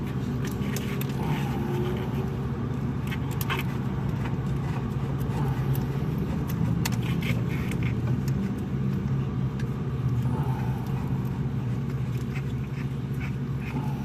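Faint scattered metallic clicks and taps of the knock sensor and its mounting nut being handled and fitted, over a steady low hum.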